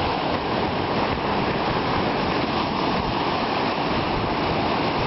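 Small ocean waves breaking in the shallows: a steady wash of surf noise.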